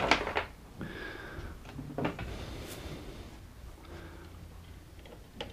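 Faint handling noise as a Torx screwdriver is brought to the plastic print-head carriage of an HP Designjet plotter: a few light clicks and knocks, about a second in, two seconds in and near the end, over a low steady hum.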